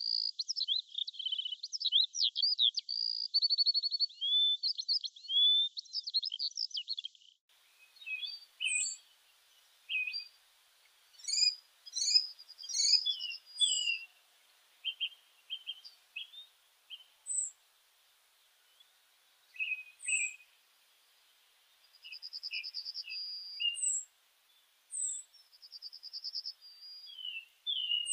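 Birds chirping and singing. A dense run of quick twittering song cuts off abruptly about seven seconds in. Scattered chirps, short whistles and a couple of brief trills follow, with pauses between them.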